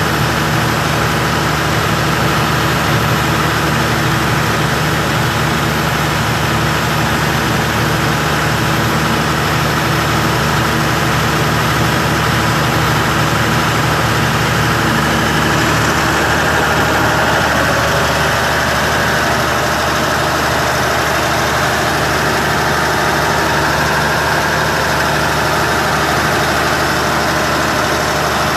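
Hangzhou Fortune oxygen production machinery running with a steady, loud mechanical hum and hiss. About halfway through, some of its lower tones drop out and the sound shifts slightly.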